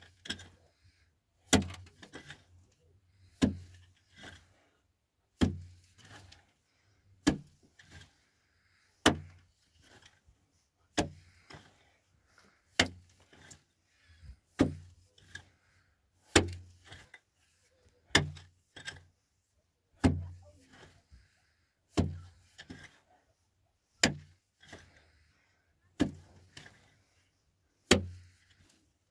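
Repeated heavy blows in a steady rhythm, roughly one every two seconds. Each is a sharp crack with a low thump, often followed by a smaller knock.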